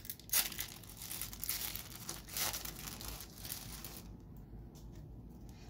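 Foil wrapper of a 2012 Panini Golden Age trading-card pack being torn open and crinkled by hand, with crackling for about four seconds before it goes quieter.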